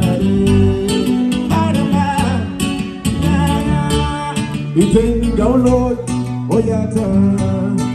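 Acoustic guitar played live, plucked steadily, with a man singing into a microphone. The singing comes in long, sliding phrases in the second half.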